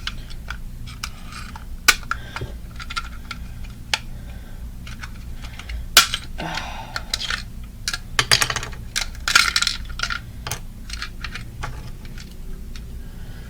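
Loose plastic and metal parts inside a smashed alarm clock rattling and clicking as it is handled and shaken, with louder clattering about six seconds in and again from about eight to ten seconds in.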